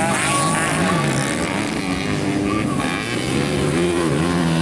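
Several motocross dirt bike engines revving up and down as the bikes race around a dirt track, the pitch rising and falling with the throttle.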